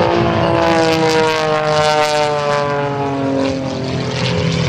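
Extra 300S aerobatic plane's six-cylinder piston engine and propeller droning loudly, the pitch falling steadily.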